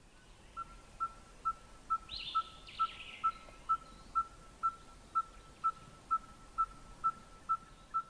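Red-fronted tinkerbird singing its monotonous song: a long, even series of short, identical piping notes at one pitch, about two a second. A brief higher-pitched call from another bird comes about two seconds in.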